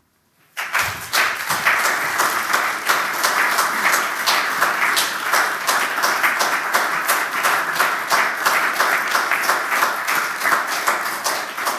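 Audience applauding: a steady, dense applause of many hands that starts about half a second in.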